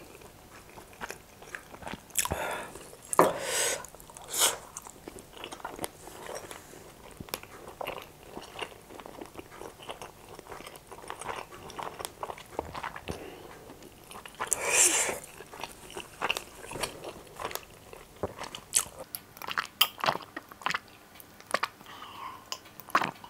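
Close-miked chewing of a mouthful of chicken keema noodles and momo: wet smacks, crunches and clicks of the mouth at an uneven pace, with a few louder bursts. Sips and swallows of a drink near the end.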